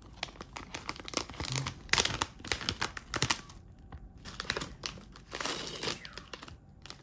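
Plastic wrapper of a convenience-store gummy candy package crinkling and tearing as it is handled and opened, in irregular crackly bursts.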